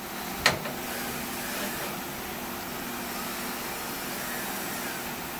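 Steady mechanical running noise with a low hum from the inspection rig's motor turning a bearing inner race, with one sharp click about half a second in as the fixture is handled.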